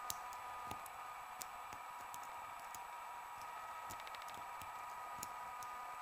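Faint, irregular small clicks of a lock pick and tension wrench working the pins of an old bronze Yale pin-tumbler padlock, with a quick run of clicks about four seconds in, over a steady background hiss and hum.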